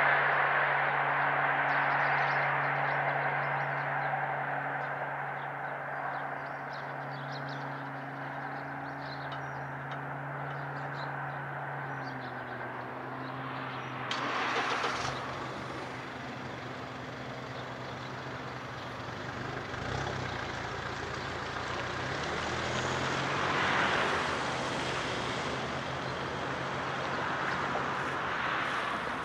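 The noise of a departed passenger train fading away over the first several seconds, under a car's engine idling. The car then pulls away and drives off, its engine note rising and fading.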